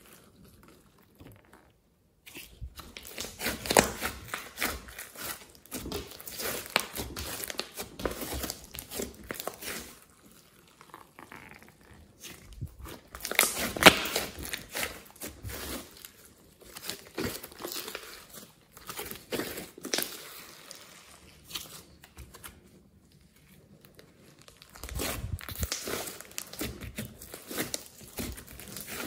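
Hands squeezing and kneading a thick mass of glossy slime with clay and foam mixed in, making irregular bursts of wet clicking and popping as trapped air is pressed out. There are short quieter pauses between handfuls.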